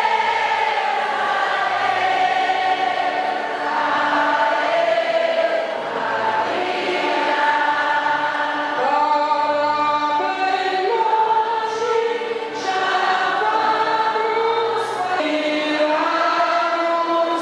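A large crowd of pilgrims singing a devotional hymn together, many voices carrying one melody in long held notes.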